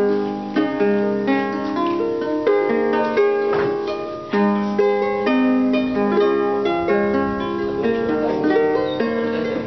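Wooden harp played by hand: a plucked melody over ringing bass notes, with new notes struck at a steady, even pace.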